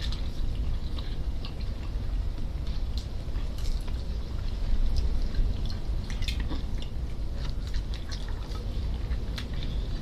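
Close-up eating sounds: two people chewing and smacking on roast chicken torn apart by hand, with many small wet mouth clicks scattered through. A steady low rumble sits underneath.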